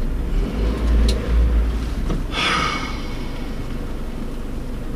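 Low rumble of a car idling, heard from inside its cabin. About two and a half seconds in, a swell of tyre and road hiss as a pickup truck towing a fifth-wheel camper trailer crosses close in front, then fades.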